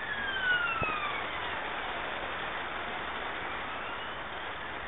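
Steady hiss of rain falling on a concrete yard, with the faint whine of a passing vehicle falling in pitch near the start and a single knock a little under a second in.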